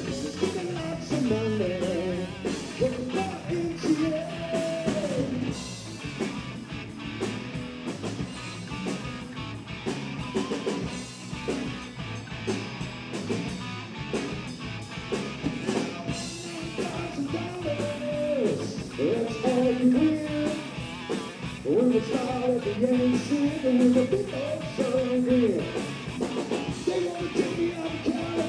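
Live rock band playing a song: electric guitar and drum kit with a singer's voice over them.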